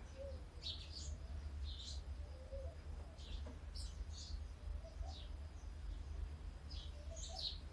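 Small birds chirping: short, high, quick-falling chirps at irregular intervals, over a steady low rumble.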